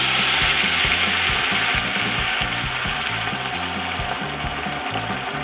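Water poured into a hot oiled frying pan of fried dried anchovies and prawn shells: a sudden loud sizzling hiss of steam at the start, slowly dying down as the water keeps pouring in.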